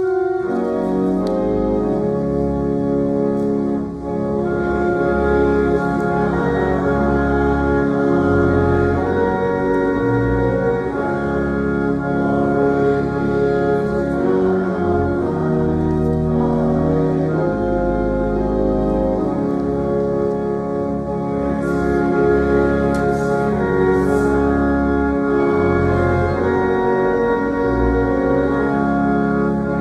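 Church organ playing slow, sustained chords over a moving bass line, coming in suddenly at the start.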